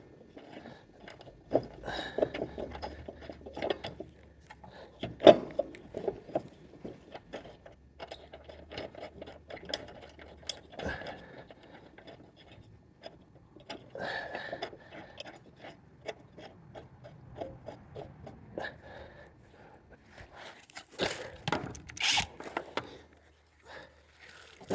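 Metal clinks, knocks and scrapes of a new steel mower blade and its bolt being fitted under a zero-turn mower deck with hand tools, with one sharp knock about five seconds in and a burst of louder clanks near the end.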